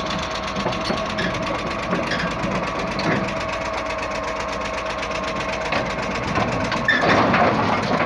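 Caterpillar D7H crawler bulldozer's diesel engine running with a steady whine as the machine drives down the ramps off a lowbed trailer. About seven seconds in, a louder surge of noise comes as it tips forward onto the ramps.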